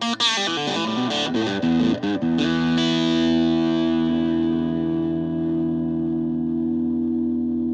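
Electric guitar played through a repaired 15-watt Fender Frontman PR-241 solid-state combo amp, which is now producing output again: a few quick strummed notes, then a chord left ringing and slowly fading.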